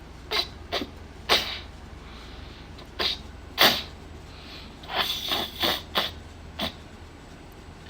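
A string of short, sharp sound-effect bursts, about eight in all, with a quick run of several together a little past the middle.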